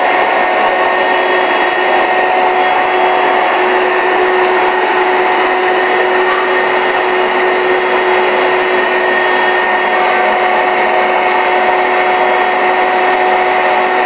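Mid-to-late-1970s Hoover Celebrity air-cushion vacuum cleaner running steadily: an even rush of air with a constant whine from its motor.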